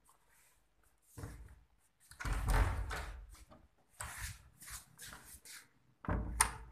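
Rustling and knocks of a handheld phone being moved about. Near the end, a metal door lever handle is pressed down and the latch clicks sharply.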